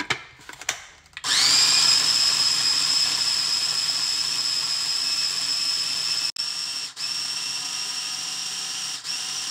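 Electric food processor motor running, puréeing sweet corn with egg and sugar: a few clicks, then it starts about a second in with a whine that rises as it comes up to speed and then holds steady. It drops out briefly a couple of times partway through.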